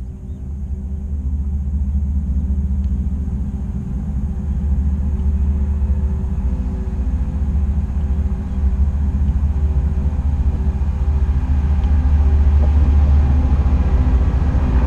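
Diesel-electric freight locomotive, a GE ES44AC, approaching: a low engine rumble with faint steady tones above it, growing steadily louder as it nears.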